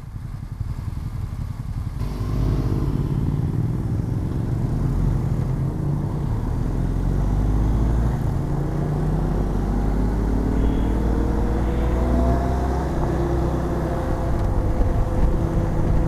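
BMW R1250 GS Adventure's boxer-twin engine pulling away from a stop and accelerating, louder from about two seconds in, its pitch rising steadily through the second half. Low wind rumble builds as speed climbs.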